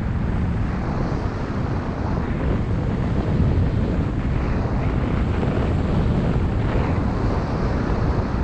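Wind buffeting the microphone of a camera carried down a groomed ski slope at speed, a steady low rumble with the hiss and scrape of edges on the packed snow beneath it.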